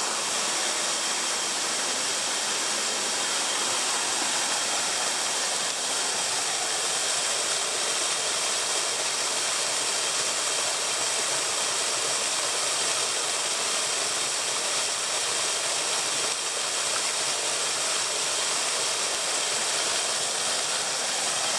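Small waterfall pouring into a pool, splashing steadily.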